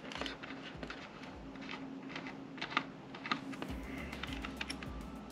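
Scattered light clicks and taps of small metal parts being handled: an M.2 slot cover and its screw being worked off a PC motherboard with a small screwdriver.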